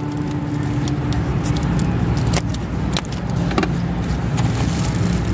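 A steady low engine-like hum, with a few sharp clicks and light rattles between about two and a half and three and a half seconds in.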